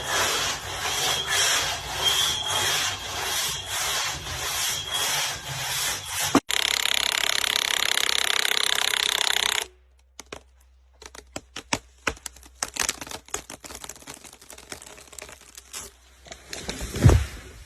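Rhythmic strokes of a hand tool working wood, about two a second. These give way to a steady loud hiss lasting about three seconds that cuts off suddenly, then scattered light clicks and knocks, with a low thump near the end.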